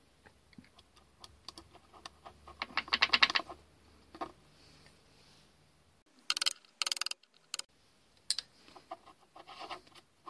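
Steel nuts and washers of a lathe lead-screw coupling clicking and rattling as they are handled and threaded on by hand. The loudest part is a rapid run of clicks about three seconds in, with two short bursts of clicks a little after six seconds.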